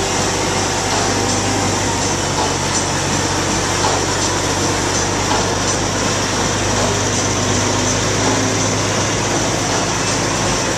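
Forklift engine running steadily while it carries a hanging engine, a constant low hum with a hiss over it.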